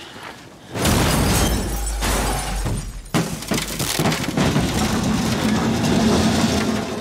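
A tall metal pipe structure crashing down. A sudden loud crash with a deep rumble comes about a second in, then a second heavy hit about three seconds in and a long run of clattering, banging metal and breaking debris.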